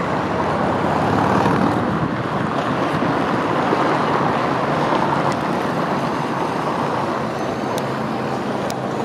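Steady outdoor city street noise: a continuous wash of traffic sound with no single event standing out.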